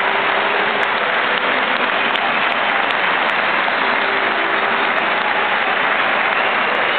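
Football stadium crowd applauding, a dense, steady clapping with no breaks.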